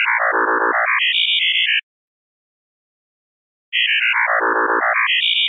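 Synthesized robot bleeps: a rapid run of short electronic tones stepping down in pitch and then back up high. The run plays twice, with about two seconds of silence between.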